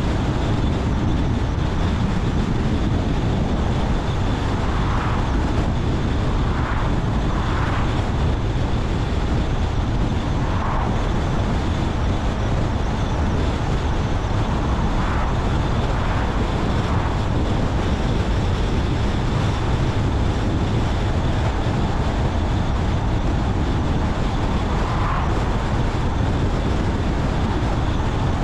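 Car driving along a road: steady tyre and road noise with a deep rumble, plus a few brief swells.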